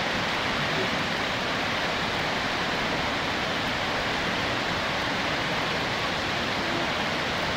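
Steady rush of water from Kurobe Dam's discharge, falling into the gorge below and breaking into spray.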